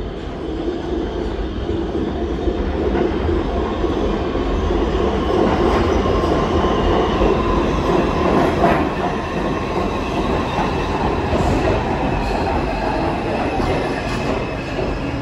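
New York City subway train running on steel rails, its rumble and wheel noise swelling over the first several seconds and easing slightly near the end, with a light high wheel squeal.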